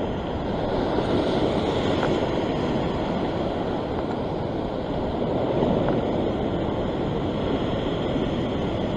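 Steady wash of ocean surf breaking over a rocky shore ledge, mixed with wind on the microphone.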